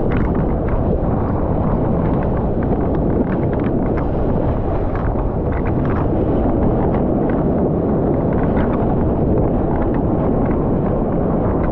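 Surfboard riding a breaking wave, heard through a board-mounted camera's microphone: a steady, loud, dull rush of water and wind, with small splashes of whitewater spray throughout.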